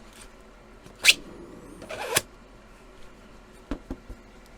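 3D-printed plastic magnetic hose coupler being turned by hand on the extraction hose: a sharp scrape about a second in, another rubbing scrape just before two seconds, then three light knocks near the end.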